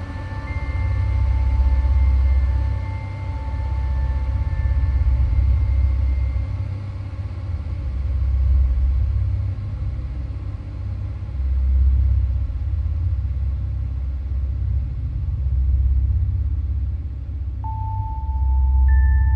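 Dark ambient background music: a deep rumbling drone that swells and fades every few seconds. Held bell-like tones die away early on and new ones come in near the end.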